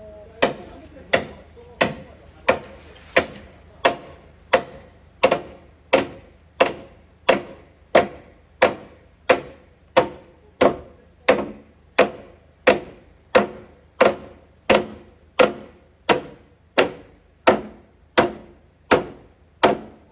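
A wooden mallet striking timber in a steady rhythm, about three blows every two seconds, each blow ringing briefly. The mallet is driving a traditional Japanese wood joint together without nails.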